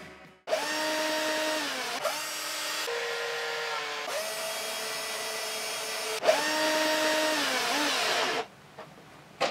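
Cordless drill working into a wooden frame, its motor whine running in about three runs, sliding down in pitch each time it slows before starting again, and stopping near the end.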